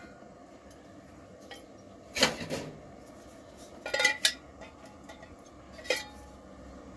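Small metal camping cook pots and a gas canister being handled and set down on a workbench: a clatter about two seconds in, a few clinks around four seconds, and one more knock near six seconds.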